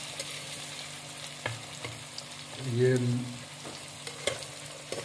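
Sliced onions sizzling as they fry in mustard oil in an aluminium pot, with a few sharp clinks of a slotted steel spoon stirring against the pot.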